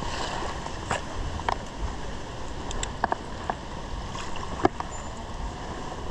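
Shallow stream water running steadily, with a handful of short, sharp clicks scattered through it.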